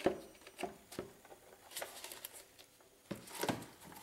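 Light clicks and taps of gloved hands working plastic engine-bay parts: sensor wiring and the plastic air filter box. A louder cluster of knocks comes about three seconds in as the air box lid is set in place.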